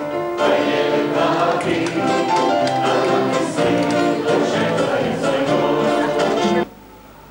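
Mixed choir of men's and women's voices singing together, cutting off abruptly near the end.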